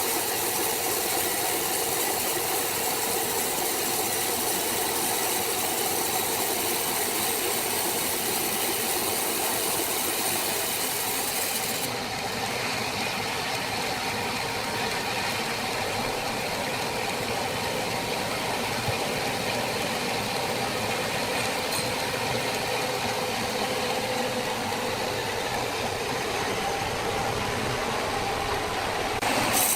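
Sawmill machinery running steadily, an even mechanical hum with hiss. About twelve seconds in, the high hiss drops away abruptly and the hum carries on.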